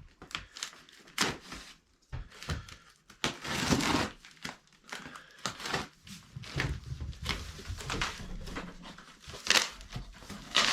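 A cardboard shipping box being opened and its packaging handled, with crinkling, rustling and scraping in irregular bursts and sharp knocks between them.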